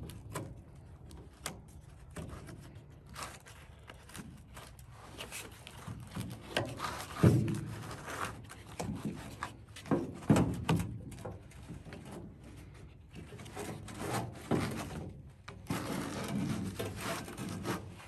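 Fabric grass-catcher bag of a push mower being worked off its metal frame by hand: irregular rubbing and scraping of cloth on the frame, with a few dull knocks, the loudest about seven seconds in.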